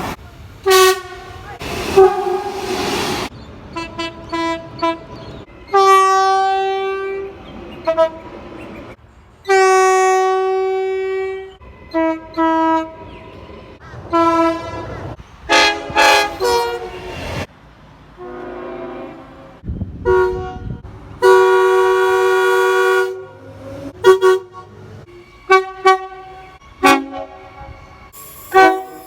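Train horns sounding a string of short toots and several longer held blasts, with the horn changing abruptly from one sounding to the next.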